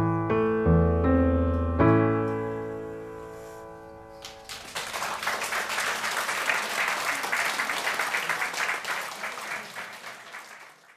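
A piano plays its last few notes, ending on a chord about two seconds in that rings away. Audience applause starts about four and a half seconds in and fades out near the end.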